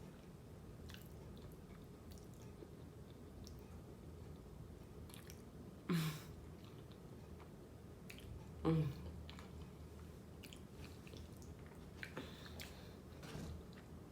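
A person chewing food close to the microphone, with faint wet mouth clicks, and two brief low hums about six and nine seconds in.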